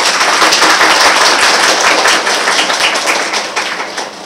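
A room of students applauding with many hands clapping together, dying away near the end.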